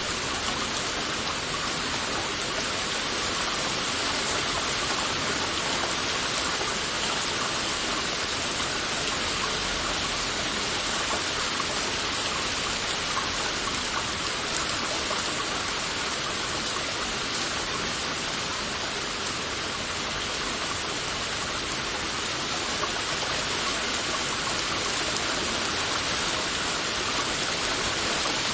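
Heavy rain falling steadily, a dense even hiss of drops with no breaks or changes in strength.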